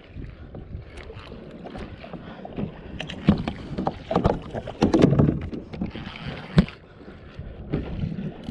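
Kayak paddle strokes: irregular splashes of the paddle blades in the water, with a few sharp knocks against the plastic sit-on-top kayak.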